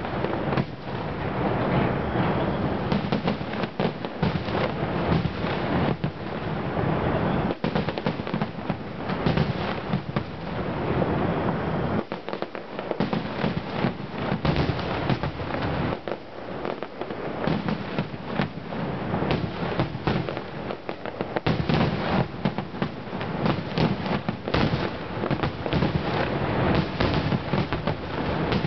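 Large fireworks display: a dense, continuous barrage of aerial shell bursts, one on top of another, easing briefly about 12 and 16 seconds in.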